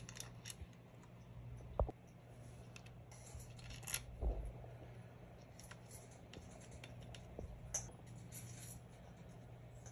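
Faint handling sounds of a hex key on the fork's axle pinch bolts: scattered small clicks and metal taps, a sharper click about two seconds in and a dull thump around four seconds, over a steady low hum.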